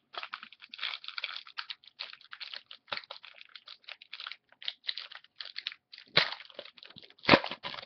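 Football trading cards being handled and flipped through, making a run of quick, irregular card-stock clicks and rustles, with two louder knocks about six and seven and a half seconds in.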